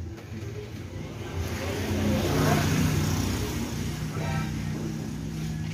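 A motor vehicle going past: its engine noise swells to a peak about two and a half seconds in, then eases off into a steady low hum.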